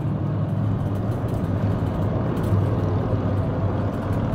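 Steady engine and road noise heard from inside the cabin of a vehicle cruising on a highway, a low even hum with tyre rumble.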